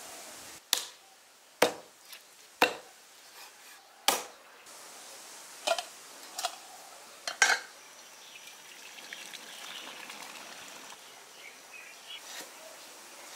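A heavy Chinese cleaver chopping on a wooden block, four sharp blows about a second apart, then a few more knocks and clinks, some ringing as the blade meets an enamel bowl. Later comes a steady splashing hiss of water pouring from a kettle into a wok.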